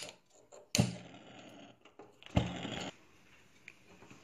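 Hand-held spark gas lighter clicked at a gas stove burner to light it: two sharp clicks about a second and a half apart, each trailing off in a brief hiss.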